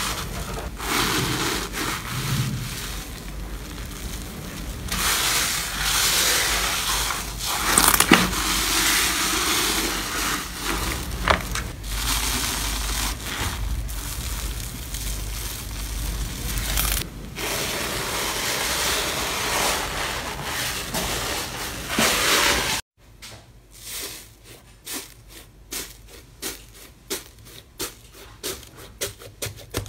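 Hands kneading and stretching airy, bubble-filled slime in a plastic tub, a continuous wet squishing with scattered small pops. About 23 seconds in it changes to a quieter run of quick, crisp crackling clicks as fingers break through a crusted layer of slime in a tray.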